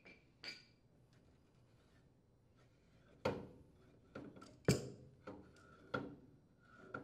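A handful of light metal clinks and knocks as a steel gas inlet pipe is turned and unthreaded from a furnace gas valve held with a wrench, the loudest knock nearly five seconds in.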